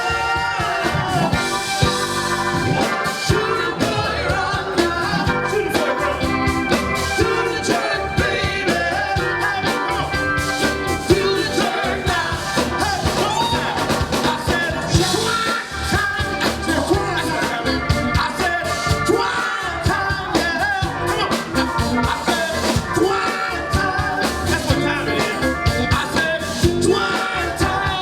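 A live Motown-style soul band playing a song, with singing over the band.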